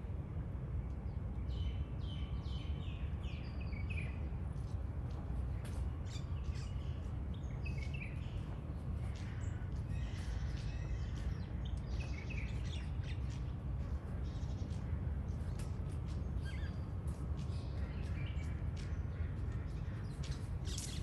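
Small birds chirping and calling, many short high chirps throughout, over a steady low rumble.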